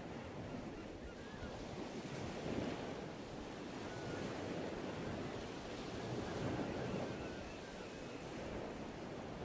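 Ocean surf washing in, swelling and ebbing in slow waves, with a few faint high chirps.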